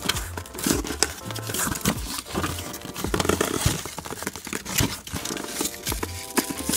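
Newspaper packing crumpling and rustling, with cardboard scraping, as a box is worked out of a tightly packed shipping carton. Background music with a repeating bass line plays underneath.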